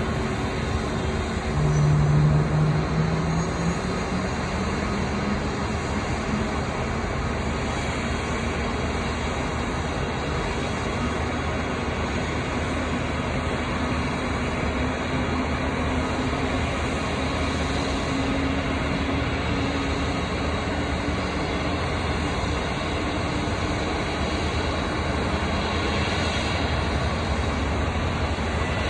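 Pushback of an Airbus A220-300 airliner by a tug: a steady roar of engine and apron noise, with a low tone rising slowly in pitch over the first twenty seconds. There is a brief louder swell about two seconds in, as the push gets under way.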